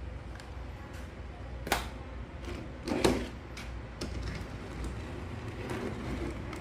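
Small hard clicks and knocks from a plastic toy being handled, two of them louder, about a second and a half apart, over a low steady hum.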